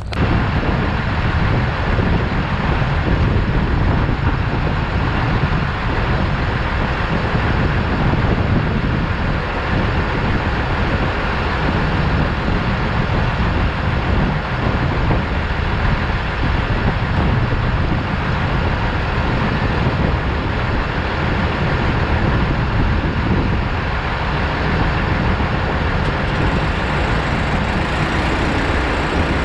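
An engine running steadily, a constant mechanical drone with no change in speed, likely the machinery used to load fertilizer into the planter.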